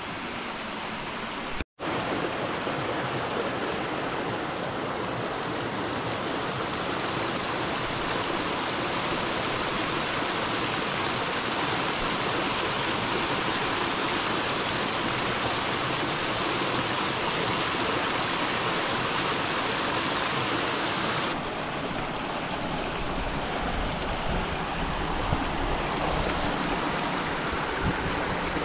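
Small mountain creek rushing and splashing over rocks in a steady, continuous flow. The sound cuts out for an instant about two seconds in.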